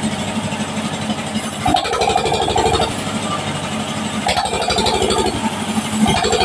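Sawmill saw machine running with a steady, fast-pulsing engine drone as a log is fed along its table. A higher hum comes and goes over it in stretches of about a second, several times.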